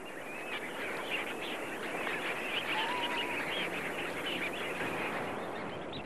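A large flock of waterbirds calling together, a dense, steady chatter of many small chirps and whistles, with one short wavering whistle standing out about three seconds in.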